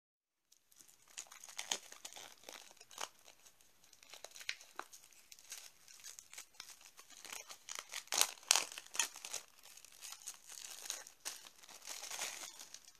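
Clear cellophane shrink-wrap being torn and peeled off a new deck of cards by hand. It makes irregular crinkling and crackling, starting about half a second in and loudest about two-thirds of the way through.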